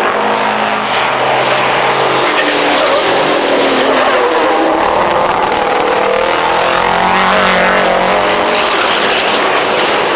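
Diesel race trucks' engines running hard, several engine notes rising and falling as the trucks accelerate and pass.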